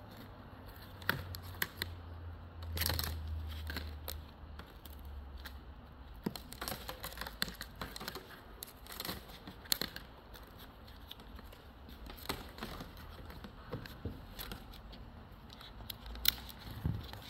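Nylon trimmer line being threaded through and wound onto a plastic strimmer spool by gloved hands: irregular light clicks, taps and rustles of line and plastic parts.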